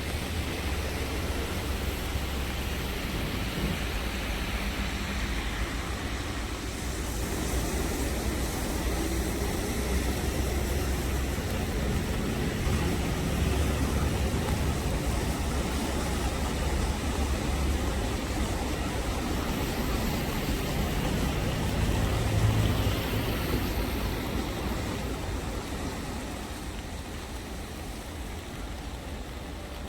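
Rain and traffic on a wet road: a steady hiss with a low rumble underneath, swelling in the middle and easing off near the end.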